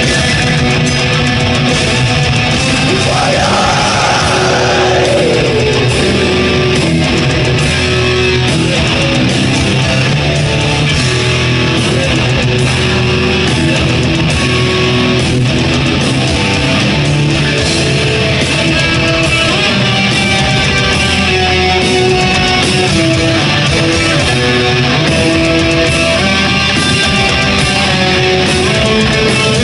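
Live black metal band playing loud, with distorted electric guitars over a drum kit, heard from among the audience. A sliding pitch sweeps down and up about three seconds in.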